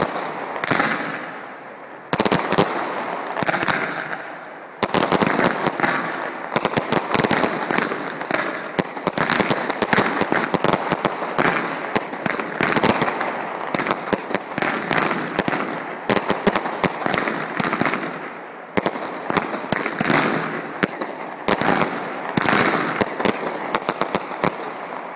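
Professional fireworks display: a dense, rapid run of bangs and crackling bursts, easing briefly every few seconds before picking up again.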